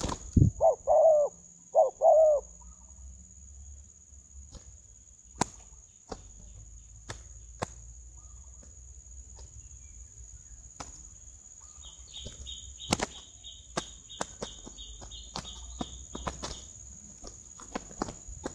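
Two spotted doves fighting, their wings flapping and clapping in irregular bursts. Near the start come four short hooting bird calls in two pairs, the loudest sounds. A steady high insect buzz runs underneath, and a pulsing high trill appears about twelve seconds in.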